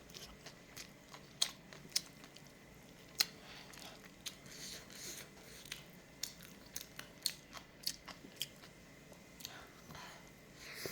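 A person chewing a mouthful of kimchi fried rice, with many sharp, irregular wet mouth clicks.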